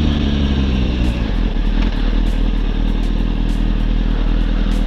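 Motorcycle engine running at low speed under wind noise. Its steady pitched hum fades about a second in, leaving a low rumble.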